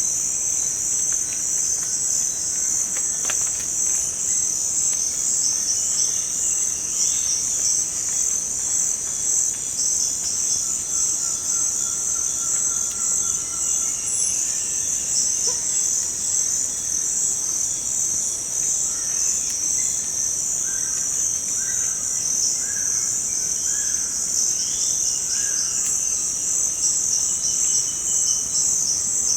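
Steady high-pitched insect chorus of forest ambience, with scattered bird calls over it, including a run of short repeated chirps in the second half.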